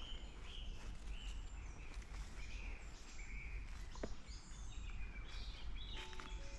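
Birds chirping and singing outdoors, many short overlapping calls throughout, over a low steady background rumble.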